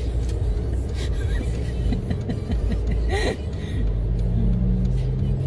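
Car driving, heard from inside the cabin: a steady low rumble of road and engine noise, with a steady low engine hum coming up about four seconds in.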